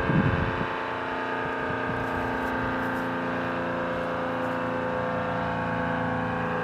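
ACA Screamer S-10 outdoor warning siren sounding a steady, sustained multi-note tone, with a brief low thump right at the start. This unit's top lid is broken out and sucked down, starving the rotor of air, and its motor is reverse-wired so the rotor vanes spin the wrong way, which leaves it not too loud.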